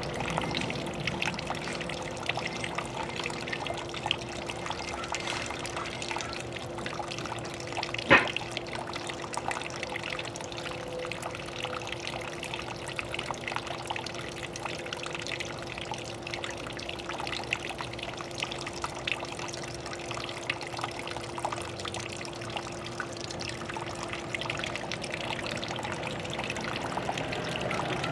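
Water trickling and splashing steadily, with a steady hum underneath. A single sharp knock stands out about eight seconds in.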